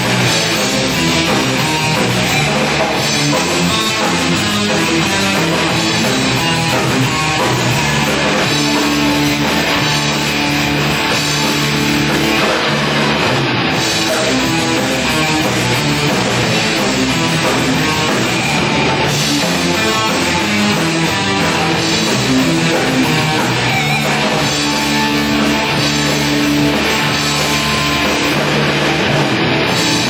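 Live rock band playing guitars and a drum kit, loud and unbroken.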